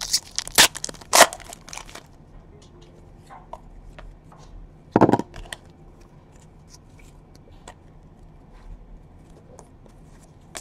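A foil trading-card pack being torn open and crinkled, with several sharp rips in the first two seconds and another loud crackle about five seconds in. In between come small clicks and rustles as the cards are handled.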